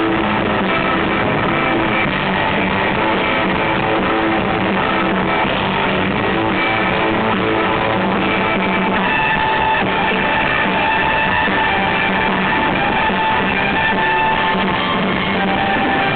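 A surf rock band playing live, an electric Fender Stratocaster guitar out front over a drum kit. The music is loud and dense without a break.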